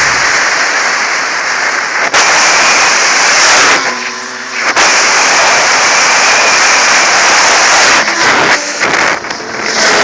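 Loud wind rush over a motorcycle-mounted camera at motorway speed, with the sport bike's engine running underneath. The rush eases briefly about four seconds in and again near the end, letting the engine note come through.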